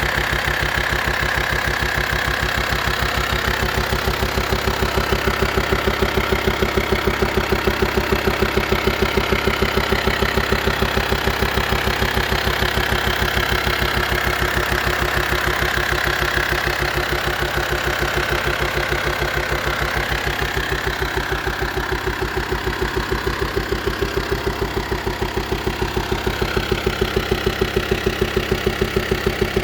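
A VW T5.1 van's BPC diesel engine idling with a steady, rhythmic knocking running through it.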